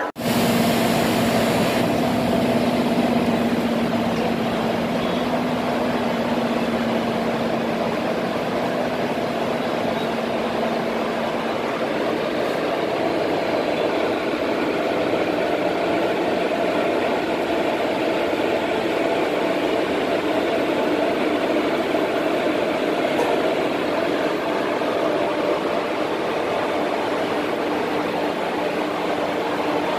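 Electric locomotives standing with their on-board machinery running: a steady hum and rush, with a faint low tone that fades away over the first ten seconds or so.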